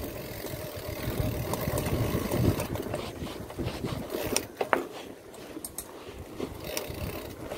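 Mountain bike rolling down a dirt singletrack: a steady rumble of tyres on the dirt with scattered clicks and rattles from the bike as it goes over bumps.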